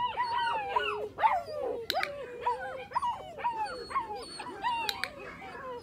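Eight-week-old puppies whining and yipping without a break, several high-pitched voices overlapping, with a few sharp clicks in between.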